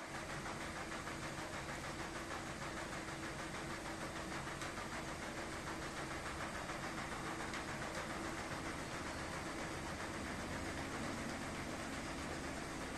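Electrolux commercial front-loading washing machines running: a steady mechanical hum with an even rushing noise over it.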